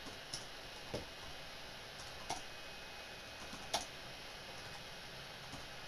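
Computer keyboard keys clicking as a chat message is typed: a few scattered keystrokes over a steady background hiss.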